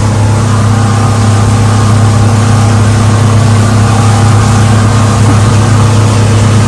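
An engine running steadily at an even speed, a loud low hum whose pitch does not change.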